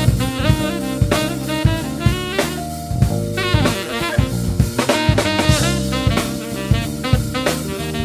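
Band playing an instrumental passage: a saxophone lead over drum kit and electric bass guitar.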